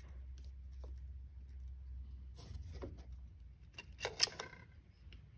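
CV boot clamp pliers on a BMW S54 throttle body boot's OE band clamp: scattered light metal clicks, then a quick cluster of sharp clicks about four seconds in as the clamp is worked shut.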